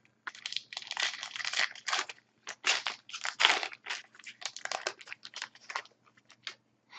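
A foil trading-card pack wrapper being torn open and crinkled by hand, a dense run of irregular crackles that thins out near the end.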